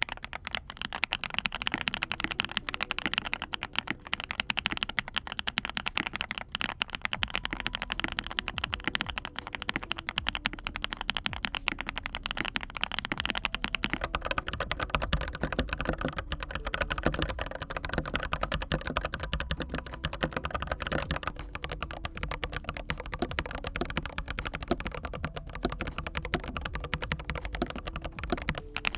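Fast, continuous typing on a custom mechanical keyboard with Foxtail Sea Salt V2 linear switches, an aluminium TKL case and PBT keycaps: a dense, unbroken clatter of keystrokes.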